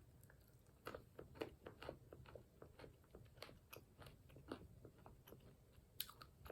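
Faint crunching and chewing of hazelnut-flavoured coated almonds in the mouth. A quick run of small crunches, thickest in the first couple of seconds, then sparser, with one sharper crunch near the end.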